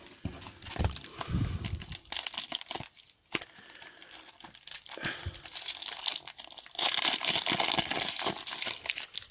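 A trading card pack's wrapper being torn open and crinkled by hand, with irregular crackling throughout that grows loudest and densest near the end.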